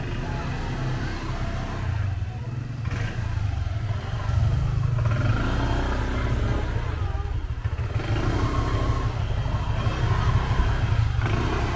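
Street traffic: motor vehicle and motorcycle engines running, a steady low rumble that grows louder about four seconds in.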